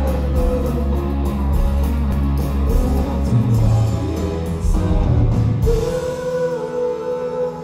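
A live rock band with guitars, bass, drums and singing, heard from within the audience in a concert hall. About two-thirds of the way through, the heavy bass drops back and a long note is held over the band.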